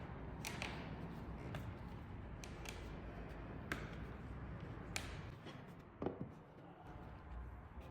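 Parts of a soft-serve machine's front door being handled during disassembly: about six sharp clicks and light knocks, roughly one a second, over steady low background noise.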